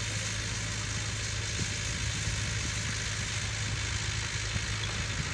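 An engine running steadily: a low even hum under a constant hiss.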